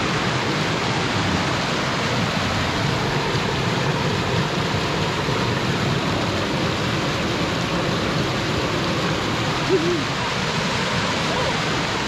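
Water spilling over a weir, rushing steadily over the rocks.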